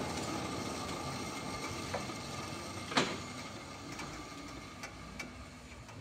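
Sawmill machinery running and slowly dying away, with a few light clicks and one sharp knock about three seconds in.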